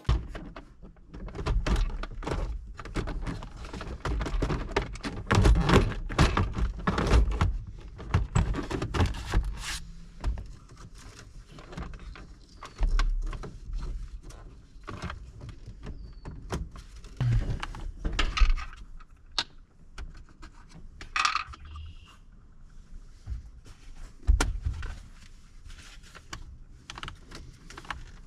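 Irregular knocks, clicks and light metallic jingling, with a few deeper thumps, from hands handling car interior parts and fittings.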